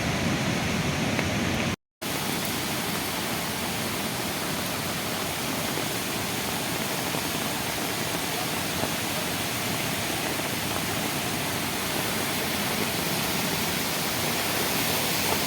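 The Beas River in flash flood: a steady, even rush of fast, heavy floodwater. The sound cuts out for a moment about two seconds in, then carries on unchanged.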